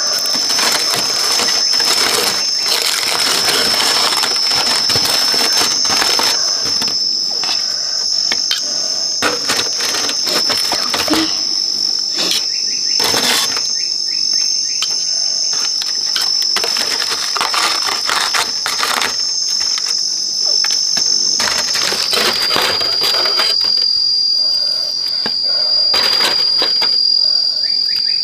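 Aluminium foil crinkling as a foil parcel of baked food is opened, with clicks and scrapes of a knife and fork against the foil and the plate. Behind it, insects keep up one steady high drone that shifts a little lower about two-thirds of the way through.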